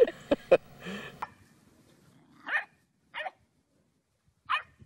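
Two sharp knocks in the first second, then a dog gives three short, high barks, unevenly spaced.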